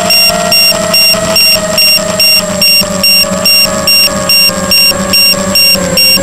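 Tarot 250 racing quadcopter's electric motors whining at a wavering pitch, heard from its onboard camera, under a loud electronic beeping that repeats about two and a half times a second.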